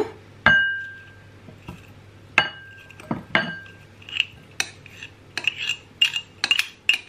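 Measuring cup knocked against a mixing bowl to empty out packed brown sugar: three sharp clinks that ring briefly, about half a second, two and a half, and three and a half seconds in. These are followed by a quicker run of lighter taps and scrapes.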